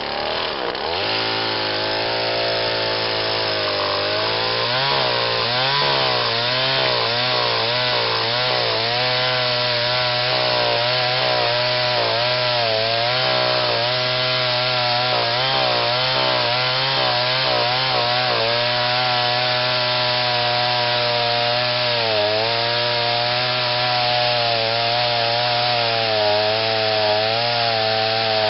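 Petrol chainsaw revving up about a second in and then cutting into a wooden log, its engine pitch repeatedly dipping and recovering as the chain bites into the wood.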